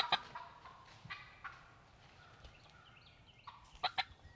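Wild turkey gobbler gobbling: a quick run of pulsed notes ends just after the start, and another short gobble sounds near the end.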